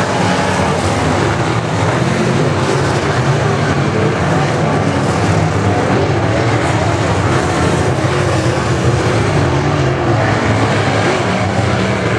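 Dirt late model race cars' steel-block V8 engines running loud on the track, their engine note wavering up and down as the cars go around.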